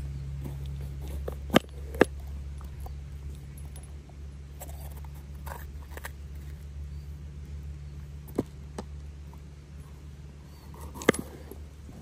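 Kitchen knife cutting bell peppers on a wooden cutting board: sharp knocks of the blade on the board, two in quick succession about a second and a half in, two more a little past eight seconds, and one near the end, over a steady low hum.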